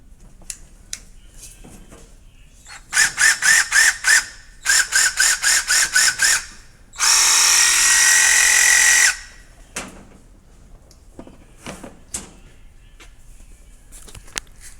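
Nemo submersible reciprocating saw's motor run unloaded. It starts in two spells of rapid pulsing, about six pulses a second, as the trigger is worked. Then it runs steadily at full speed for about two seconds and stops abruptly.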